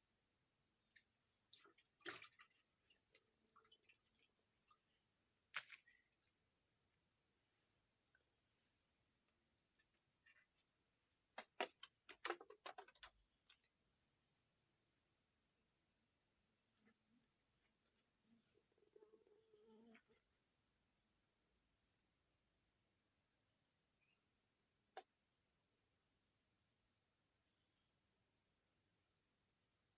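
Steady high-pitched chorus of crickets or similar insects, with a few sharp clicks and knocks scattered through it.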